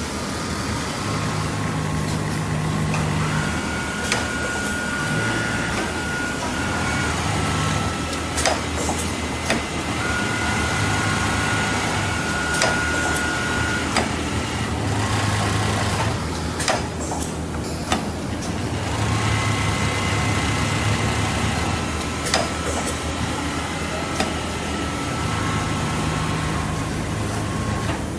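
Richpeace automatic single-head template sewing machines running together: a steady mechanical hum with a low drone. Whining tones come and go for a few seconds at a time, and sharp clicks are scattered throughout.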